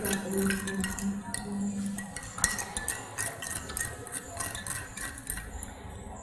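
Metal spoons stirring in drinking glasses, tapping and clinking against the glass over and over, as salt is stirred into water to dissolve it and a brown cloudy mixture is stirred beside it. A low steady hum sounds during the first couple of seconds.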